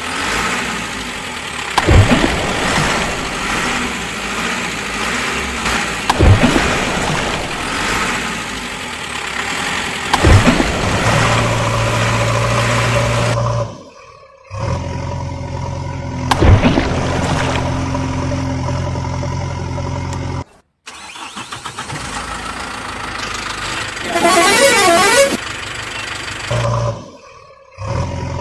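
Vehicle engine noise surging about every four seconds, then a long, steady vehicle horn sounding in three extended blasts, broken by brief drops, with a warbling stretch near the end.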